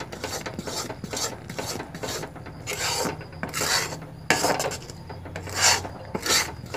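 A spatula scraping and stirring thick, sticky jaggery syrup around an aluminium pan in repeated irregular strokes. The syrup is cooked down to the thick stage for moa, past the point of drawing threads.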